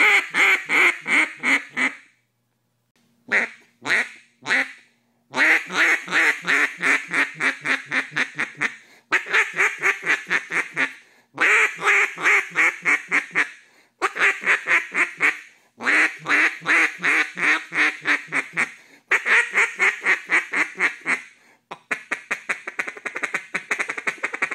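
BSOD keyhole cut-down duck call blown by mouth, sounding duck-like quacks in repeated runs of rapid notes a few seconds long, separated by short pauses. Near the end it gives a faster, quieter run of notes.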